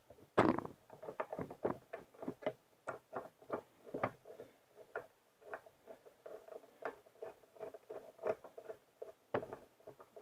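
Irregular light clicks and taps, several a second, of 3D printer parts and hand tools being handled as an end piece of the print bed assembly is refitted.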